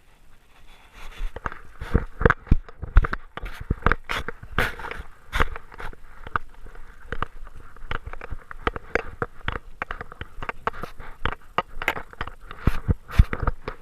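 Irregular knocks, scrapes and crackles of a GoPro camera's housing being jostled and rubbed against, starting about a second in.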